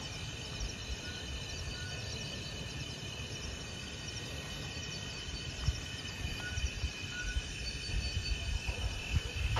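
A steady chorus of crickets and other night insects chirping, with a low rumble underneath and a few soft bumps in the second half.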